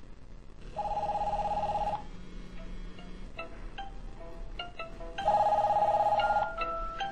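Several mobile phones ringing at once on an incoming call: an electronic warbling two-tone ring sounds in two bursts of just over a second, about a second in and again about five seconds in, while a melodic ringtone picks out short notes in between.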